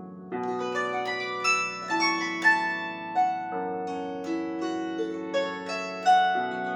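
Solo plucked string instrument playing a flowing melody of ringing, decaying notes over held bass notes, with a new phrase entering about a third of a second in.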